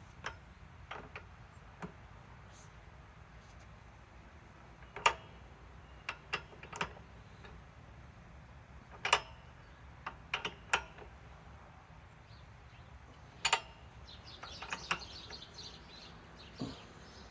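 Scattered sharp metallic clicks and clinks, about fifteen at irregular intervals, some in quick pairs or threes, from hand tools and sockets being handled; the impact wrench is not running.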